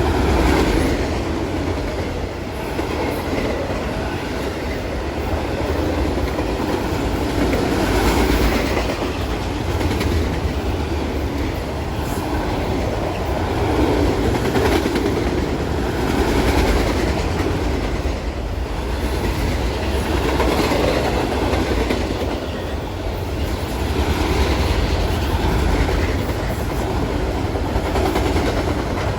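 Train cars rolling past with the wheels clacking over the rails, a steady din that swells and eases every few seconds as each car goes by.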